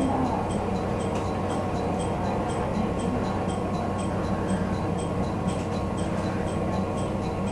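Diesel railcar running noise heard from inside the car, a steady rumble and hum as the train pulls into a station. Faint high ticks come about twice a second throughout.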